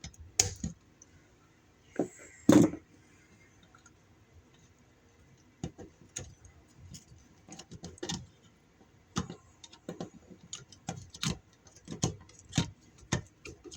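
Small irregular metallic clicks and taps of a screwdriver working on a wall receptacle's terminal screws while the receptacle is handled, with a louder knock about 2.5 s in.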